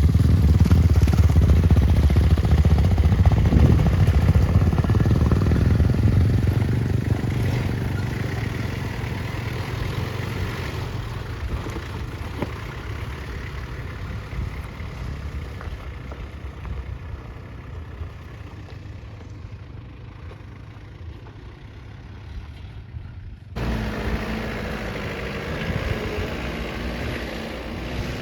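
Vehicle engine running with a loud low rumble that fades steadily over about fifteen seconds. An abrupt change about 23 seconds in brings a steadier engine hum.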